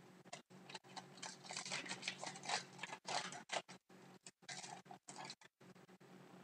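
Trading cards and pack wrappers being handled: soft, irregular rustling and sliding of card stock and wrapper in bursts, busiest for the first few seconds, with a few brief dropouts in the sound.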